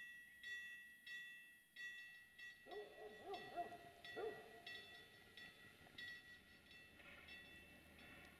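Level crossing warning bell ringing faintly, about two strokes a second, as the crossing's red lights flash for an approaching train. About three seconds in, a short wavering call, lower in pitch, sounds twice over the ringing.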